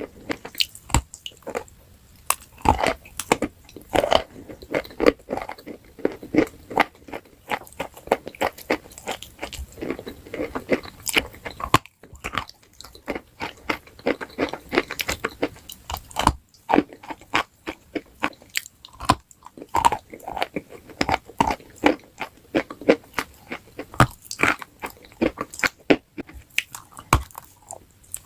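A person biting and chewing something hard and crunchy: a dense, continuous run of crisp crunches and crackles.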